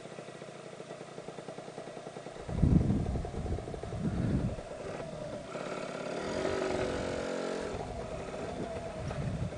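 Lambretta scooter's two-stroke single-cylinder engine running at low revs as it rolls, with two short low rumbles about two and a half and four seconds in, then revving up and easing back off.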